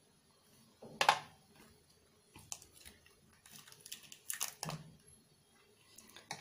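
Scattered soft clicks and rustles from a silicone chocolate mould being flexed and set chocolates popped out onto a ceramic plate; the sharpest click comes about a second in, with a cluster of smaller ones past the middle.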